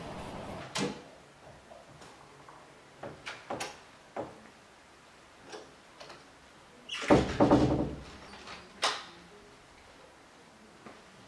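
A door being opened and shut: several separate latch and handle clicks, then a louder clatter of knocks about seven seconds in, and one more sharp click about a second later.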